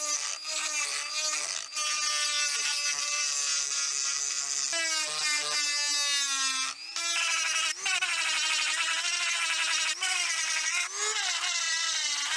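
Handheld rotary tool spinning an abrasive grinding stone against the steel head of a ball peen hammer: a high whine over a grinding hiss. The pitch sags and recovers as the stone is pressed into the metal, with a few abrupt breaks.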